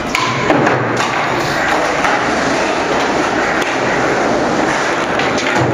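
Skateboard wheels rolling over an asphalt car park deck, a steady rumble with a few sharp clacks.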